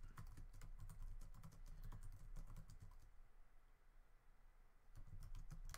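Faint typing on a computer keyboard: a quick run of keystrokes, a pause of about two seconds, then more keystrokes near the end.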